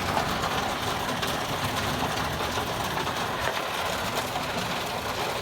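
Steady rain noise from a storm, an even hiss that neither builds nor fades.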